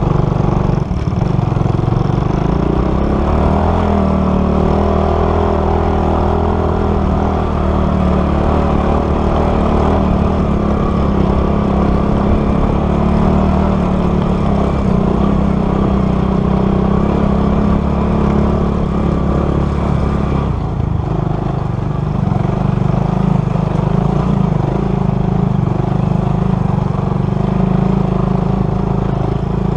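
Motorcycle engine running steadily under load on an uphill off-road ride. Its note changes about two-thirds of the way through.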